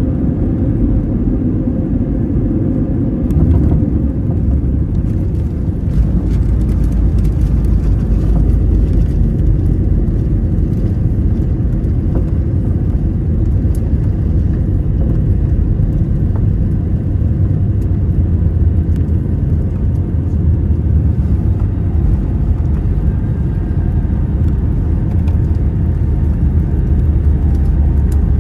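Steady low rumble inside the cabin of an Airbus A320neo around landing, heavier in the low end from about six seconds in.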